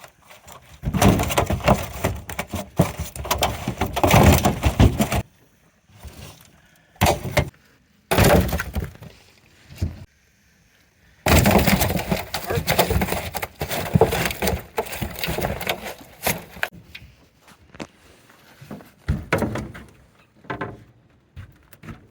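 Buffalo fish flopping and banging in the boat as a hoop net is emptied: several loud, clattering bursts a few seconds long, with quieter gaps between them.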